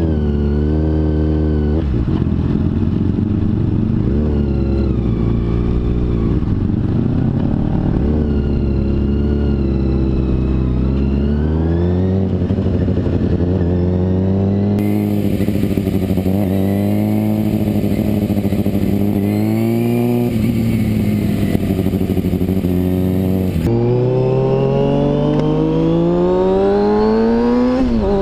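2013 Kawasaki Ninja ZX-6R 636's inline-four engine heard on board while riding, the revs climbing and dropping again and again with throttle and gear changes. It pulls up in one long steady climb near the end.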